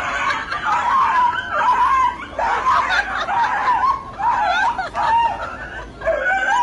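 Siberian husky howling and yowling in repeated wavering bouts, each up to a second or so long. It is a dramatic protest while being held for an injection.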